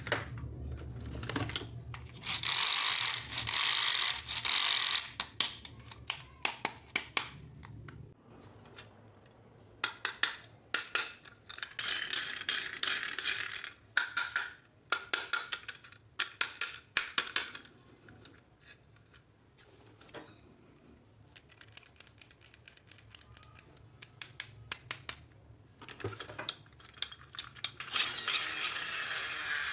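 Hands handling a toy and its packaging: many small clicks and taps of plastic parts, with stretches of rustling several times, loudest near the start and again near the end.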